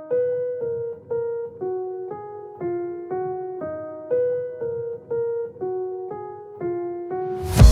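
Background music: a keyboard plays a steady pattern of notes and chords, about two a second. Drums and bass come in near the end.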